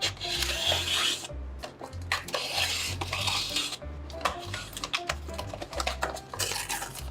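Paper being handled close to the microphone: rustling and scraping bursts, the longest near the start and near the end, with many small taps and clicks. Under it runs background music with a repeating bass line.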